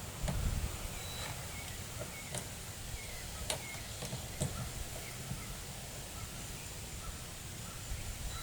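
Outdoor ambience: faint, scattered bird calls over a low, steady rumble, with a few faint sharp clicks in the first half.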